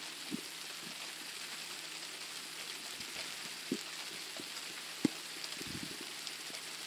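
Steady hiss of thunderstorm rain, with a few sharp taps close by, the loudest about five seconds in.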